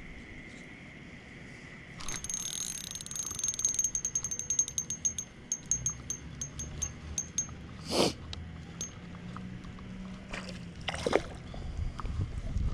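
Spinning reel's drag clicking as a hooked fish pulls line: a fast high buzz starting about two seconds in that slows into separate clicks over several seconds. Two short noisy bursts follow later, the loudest about eight seconds in.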